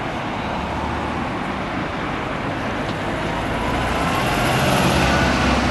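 Double-decker buses' diesel engines and tyres in passing traffic, growing louder over the last couple of seconds as a bus pulls past close by, with a faint whine over the engine note.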